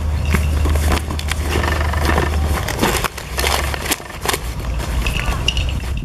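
Fresh banana leaves rustling and crackling as hands press and fold them into a hole in the soil, a dense run of irregular crisp crackles over a steady low hum.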